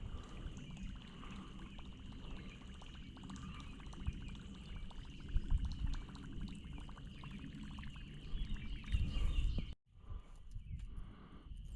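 Splashing water and close handling noise as a fish taken on a topwater lure is played in, over a steady high-pitched outdoor chorus. The sound drops out abruptly near the end and resumes.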